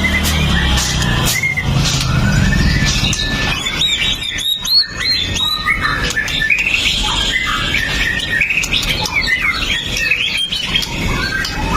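White-rumped shama singing a fast, varied song of sharp chirps, rising and falling whistles and trills, with short flat whistled notes repeated in the first second or so.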